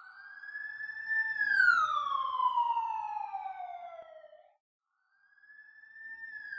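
Siren wailing: a single tone rises, holds briefly, then slides slowly down. It breaks off for about a second and starts rising again near the end.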